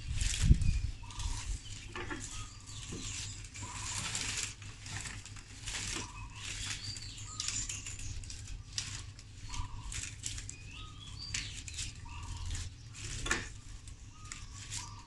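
Strips of coconut leaf rustling and crackling as they are pulled and tucked by hand while weaving a hat brim, with a low thump about half a second in. Short bird calls sound in the background.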